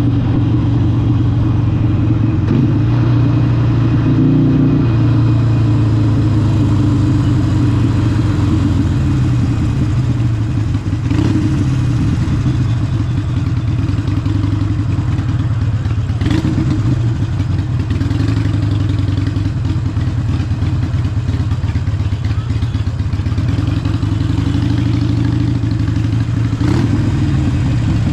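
Harley-Davidson 883 SuperLow's air-cooled 883cc Evolution V-twin running through a Vance & Hines exhaust on the move, its pitch rising and falling as the throttle changes. A few short clicks stand out, roughly every five seconds in the second half.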